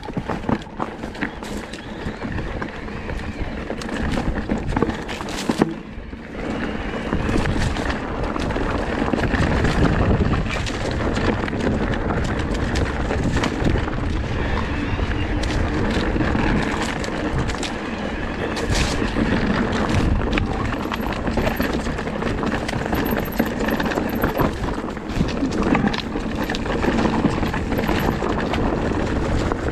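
Electric enduro mountain bike riding over rocky singletrack: tyres rolling over stones and dirt with frequent clatter and knocks from the bike. Separate knocks at first, then a denser, louder rush of noise from about seven seconds in.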